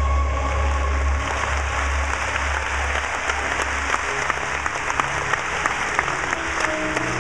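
Audience applauding, with sharp individual claps standing out more from about three seconds in, as steady music fades out in the first second or so.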